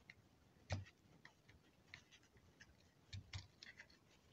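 Faint clicks and taps of a power-supply circuit board being pressed into its plastic case. There is a sharper knock about three-quarters of a second in and a few more clicks a little after three seconds.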